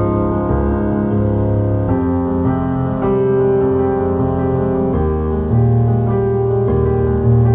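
Background music led by piano: slow sustained chords that change a few times.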